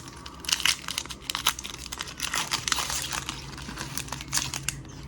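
Foil booster-pack wrapper crinkling and tearing as it is handled and opened: a dense run of irregular crackles.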